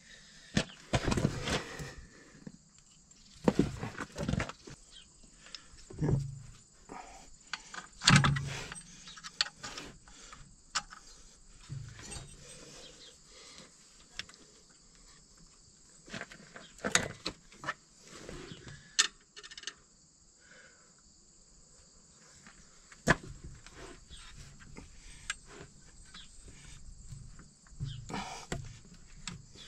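Scattered metal clinks and knocks of hand tools, bolts and a spacer as a new alternator is fitted onto its bracket on a John Deere 2755 tractor engine, a few sharp knocks standing out among quieter handling.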